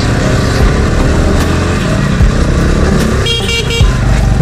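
Air-cooled 250 cc single-cylinder engine of a Motorhead X-Torque 250 dirt bike running under way, heard from the rider's seat, with a short vehicle horn blast about three quarters of the way in.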